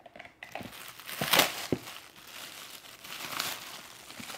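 Shiny gold gift-wrap crinkling and tearing as a present is unwrapped by hand. The loudest rip comes about a second and a half in.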